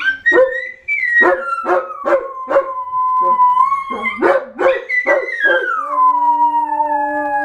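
Pet dogs howling together, with short barks and yips breaking in between the long notes. One long howl slides down in pitch about two-thirds of the way through and holds low while a deeper howl sounds under it.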